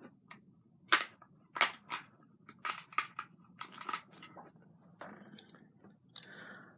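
Sharp plastic clicks and knocks from handling a Tecsun PL-606 radio's battery compartment while the batteries are reseated, about a dozen in irregular succession. A short rustle or scrape comes near the end.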